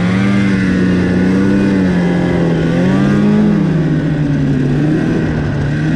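Snowmobile engine running under throttle while riding through snow, its pitch rising and falling with the throttle, dipping and climbing again about halfway through.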